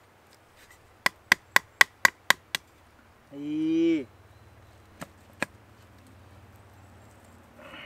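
Sharp wooden knocks as a tight, freshly cut wooden crosspiece of a homemade camp table is knocked into its holes: seven quick knocks at about four a second, then two more single knocks a few seconds later.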